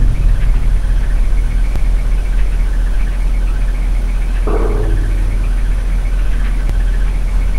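A steady, low engine-like drone. About four and a half seconds in, a short burst of noise rises over it and fades within half a second.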